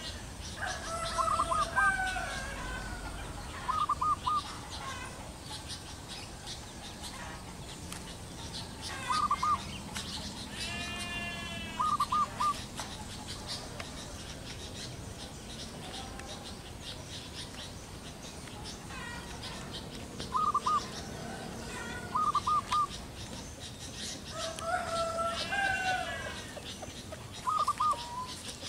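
Zebra doves cooing: about seven short bursts of a few quick, staccato notes each, repeated every few seconds. Other birds call in the background.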